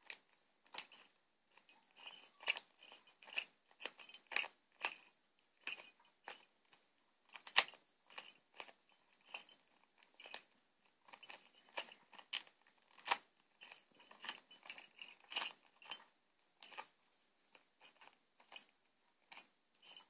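Plastic Rubik's Cube being turned quickly by hand to scramble it: a run of irregular clicks and scrapes, two or three a second, with one louder snap about seven and a half seconds in. The cube is stiff to twist, so the turns scrape rather than glide.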